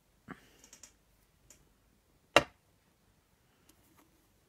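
Small objects being handled on a craft table: a click and brief light rustle just after the start, then one sharp tap about two and a half seconds in.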